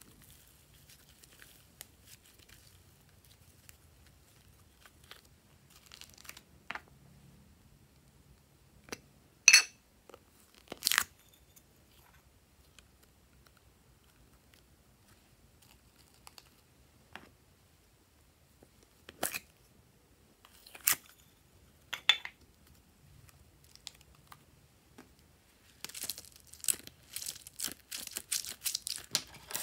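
Hands handling slime-making materials: mostly quiet, with scattered sharp clicks and crinkles from plastic cups and packaging. Near the end comes a dense run of crackling and squishing as a mesh-covered squishy ball full of water beads is squeezed.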